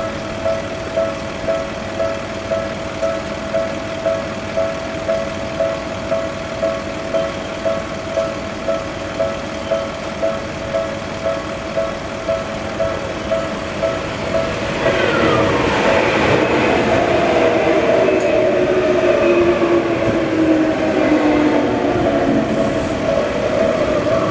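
Japanese level-crossing alarm with the Tokyu-style electronic bell, ringing steadily about twice a second. About fifteen seconds in, a Tokyu Oimachi Line train passes through the crossing and its running noise, with a slowly falling whine, covers the bell.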